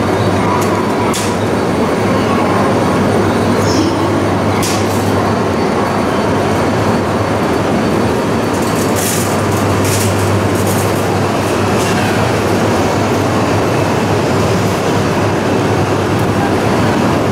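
E926 East i Shinkansen inspection train rolling past along a station platform: a steady rumble of wheels and running gear under a low hum, with a few sharp clicks about a second in, near five seconds and around nine to ten seconds.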